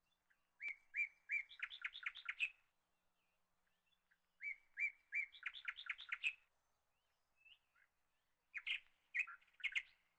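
A songbird singing three short, similar phrases a couple of seconds apart. Each opens with a few spaced notes and runs into a quick series of repeated notes.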